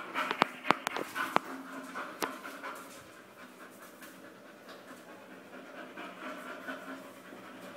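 Bull terrier panting steadily, with a few sharp clicks in the first second and a half and one more just after two seconds.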